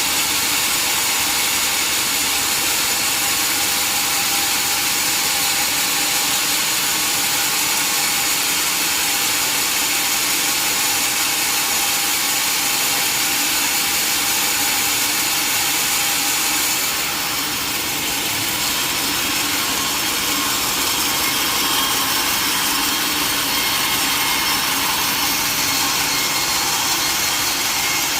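Sawmill saw running steadily through a mahogany log, a continuous high, hissing cutting noise that changes slightly about two-thirds of the way through.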